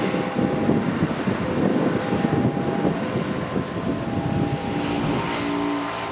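A train running past close by, its wheels clattering on the rails in a dense rough rumble. Thin steady tones sound on and off above it, and a deeper steady hum comes in about five seconds in.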